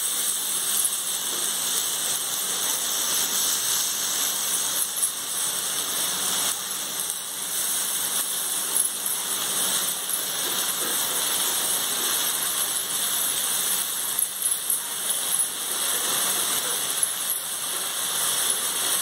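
Washed sunsunia (water clover) greens sizzling in hot mustard oil in an aluminium kadai: a steady hiss, with a few small crackles in the second half.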